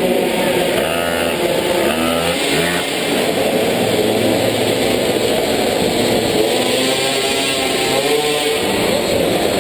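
Minimoto (pocket bike) small two-stroke engines running, heard from on board one of the bikes, the pitch rising and falling as the throttle is blipped on and off.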